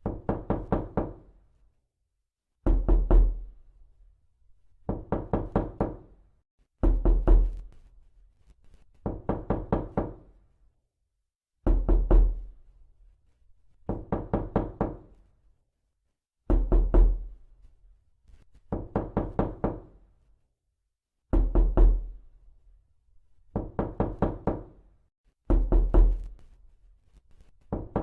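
Repeated knocking in quick bursts of about four to six knocks, one burst roughly every two seconds, with silence between the bursts.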